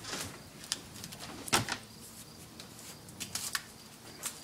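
Scattered light clicks and knocks from a salad dressing bottle being handled at the kitchen counter, with one sharper knock about a second and a half in.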